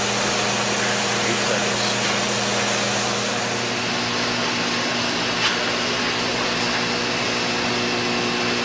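Induction heating system running under power: a steady hum and hiss with a few steady tones over it, one of which shifts slightly about three and a half seconds in. A single brief click comes about five and a half seconds in.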